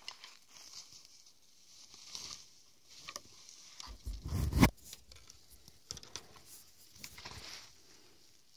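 Irregular crackling and rustling of twigs and brush underfoot among storm-felled spruce, with a louder crackling thump about four and a half seconds in.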